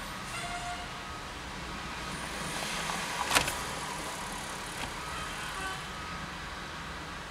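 Pierce fire engine's diesel engine running low and steady as the pumper backs slowly into its station bay, with one short, sharp burst about three and a half seconds in.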